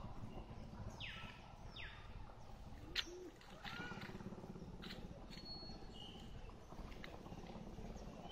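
Birds calling in forest ambience: two quick downward-sweeping calls about a second in, then scattered short whistles, over a low steady rumble. A single sharp click about three seconds in is the loudest sound.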